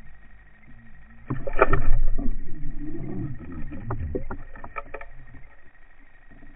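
Water churning and knocking, heard through an underwater camera's housing. A sudden loud rush starts about a second in, with a run of sharp clicks, and dies away after a few seconds.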